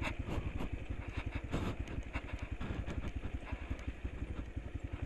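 Motorcycle engine running slowly with a fast, even pulse while descending a steep, rough track. Scattered knocks and rattles come from the bike jolting over the rocky surface.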